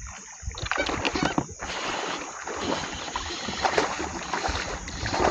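Water splashing and sloshing with many small knocks and clicks around a kayak while a hooked largemouth bass is fought on a baitcasting rod.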